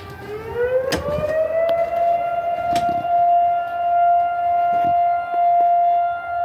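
Volunteer fire department alert siren winding up, its pitch rising over about two seconds and then holding one steady tone: the call-out alert summoning volunteer firefighters to the station.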